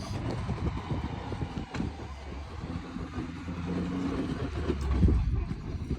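A motor vehicle's engine running, its pitch rising and falling a few times.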